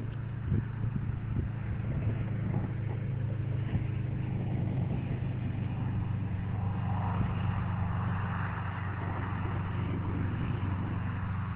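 Car engine running with a steady low hum, heard from inside the car. A soft rush of noise swells and fades about two-thirds of the way through.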